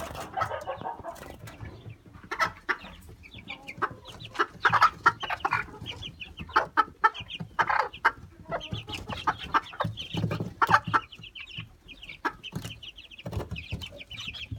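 Game-fowl chickens calling: irregular louder clucks mixed with runs of quick, high chick peeps.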